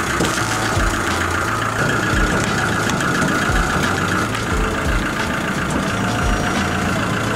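Kia Bongo III truck idling with its hydraulic stabilizer-leg system working: a steady mechanical hum with a constant whine over it.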